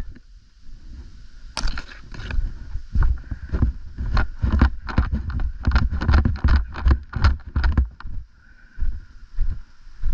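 A quick, irregular run of knocks and rustles, densest in the middle.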